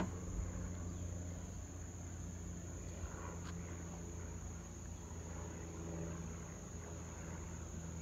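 Steady high-pitched drone of insects, over a low steady rumble from the distant motorboat's engine across the water.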